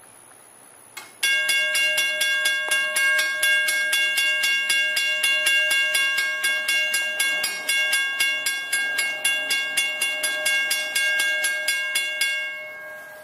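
A bell ringing rapidly, about four strikes a second, each strike ringing on into the next. It starts suddenly about a second in and stops near the end.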